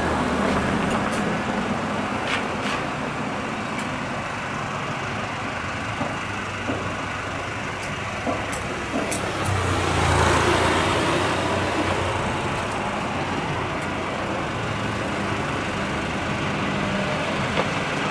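Steady road traffic noise from vehicles on a nearby street. One vehicle passes louder about halfway through.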